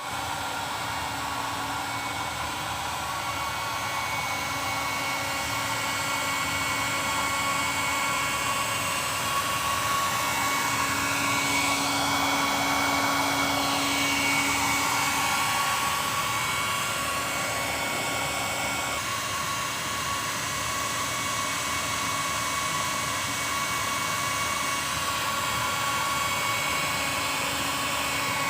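A motor-driven machine running steadily: a constant whir with a broad hiss, a little louder around the middle.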